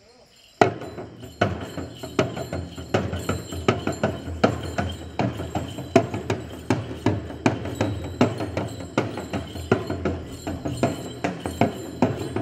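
Jhakri shaman's drum beaten in a quick, steady rhythm for the dance, starting abruptly about half a second in.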